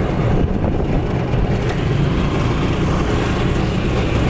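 Steady rumble of a moving vehicle: engine and road noise heard from on board, with no distinct knocks or changes.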